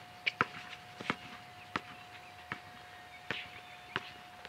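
A basketball being dribbled on an outdoor court: sharp single bounces at uneven spacing, roughly one every half second to second.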